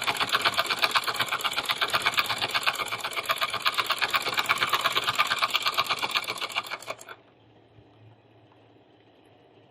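Foot-treadle sewing machine stitching through cloth: a fast, even clatter of about six or seven stitches a second, which stops abruptly about seven seconds in.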